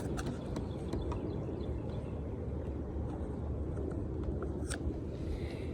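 Wind buffeting the microphone: a steady low rumble, with a few faint clicks on top.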